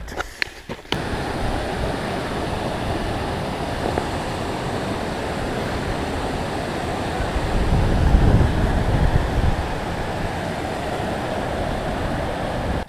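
Steady rush of white water from a mountain river or waterfall, starting suddenly about a second in. A deeper rumbling swell rises for a couple of seconds about eight seconds in, and the sound cuts off abruptly at the end.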